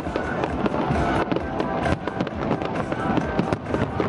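Aerial fireworks exploding in quick succession, a dense run of bangs and crackles, with music playing under them.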